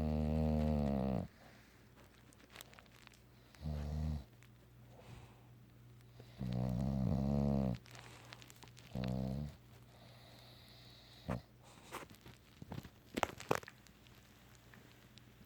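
Bulldog snoring in its sleep: four loud pitched snores at uneven intervals, followed by a few short, sharp sounds over the next few seconds.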